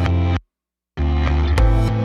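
Background music with a heavy beat that cuts out abruptly about half a second in and comes back roughly half a second later.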